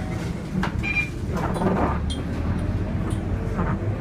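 Scania K230UB city bus under way, heard from inside: its five-cylinder diesel engine running with a steady low drone, the body and fittings giving short clicks and rattles, and a brief rushing noise about a second and a half in.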